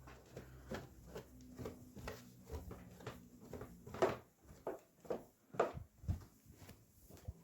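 Irregular light clicks and taps, a couple a second, with two louder knocks about four and five and a half seconds in.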